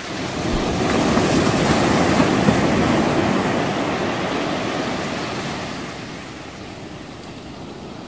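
Wind buffeting the microphone and sea water rushing past the bow of a moving boat, a steady rushing noise that swells in the first seconds and eases off toward the end.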